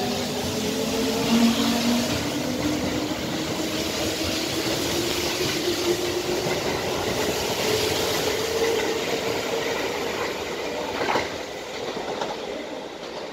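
Kintetsu electric express train of 1253-series and 2800-series cars pulling out and accelerating past, its motors whining in a tone that slowly rises over the rumble of the wheels. The wheels click over rail joints about eleven seconds in, and the sound fades as the last car draws away.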